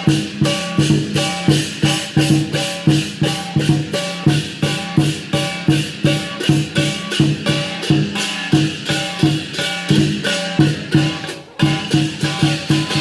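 Lion dance percussion: drum, cymbals and gong struck in a fast, steady rhythm of about four strokes a second, with a brief break near the end.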